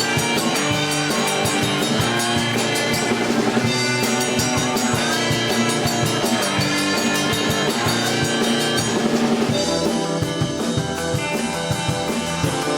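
Rock band playing live, drum kit and electric guitar, with no singing; about ten seconds in the cymbals drop back and the sound thins in the highs.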